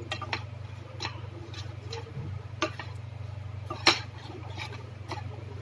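Wooden spatula scraping and tapping in a ceramic-coated frying pan, stirring cashews through sticky caramelized sugar and butter: irregular scrapes and clicks, with one sharper knock about four seconds in, over a steady low hum.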